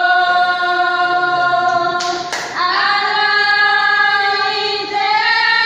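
Women's voices singing a Creole gospel song, holding long, steady notes, with a short hiss of a sung consonant or breath about two seconds in and a step up in pitch near the end.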